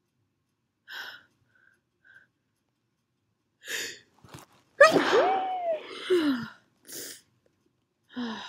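A person's loud sneeze about five seconds in, with a voiced cry that rises and then falls in pitch, brought on by the nose irritation from sniffing a strong cologne. Short breaths and gasps come before and after it.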